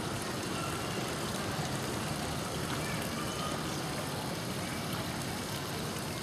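Steady outdoor background noise, an even wash with no distinct events, with a few faint short tones on top.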